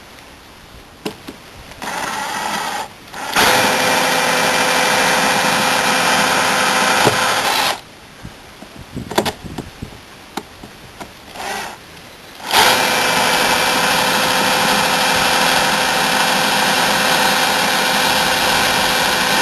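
Power drill drilling out the pop rivets that hold a motorhome door's bottom hinge, running as a steady motor whine in several goes. There is a short run about two seconds in, a longer one from about three and a half to eight seconds, brief pulses after that, then a steady run from about twelve and a half seconds on.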